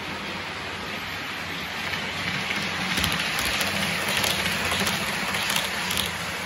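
OO gauge model train running past close by: a steady rushing hiss from its wheels and drive on the track, swelling to its loudest between about three and six seconds in, with a string of light clicks as the wheels run over the track.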